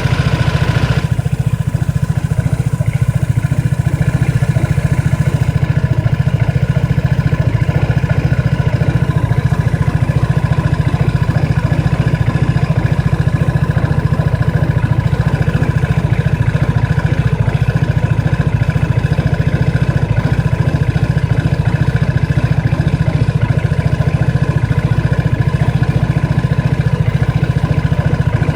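A Bon's engine idling steadily with an abnormal idle noise, the fault the owner is recording it to show.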